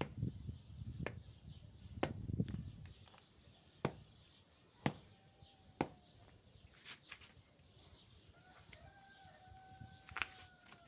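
Plastic plant pots shuffled across and set down on a concrete floor, with several sharp knocks. Near the end a faint long call from a chicken carries over it.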